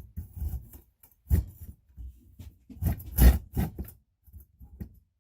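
Repaired Silky Gomboy folding pull saw cutting into a piece of wood in uneven rasping strokes, the loudest cluster about three seconds in.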